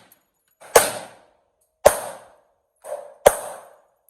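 Three pistol shots from a Kimber 1911 in .45 ACP, fired about a second apart, each with a short ringing decay. A fainter shot sounds just before the third.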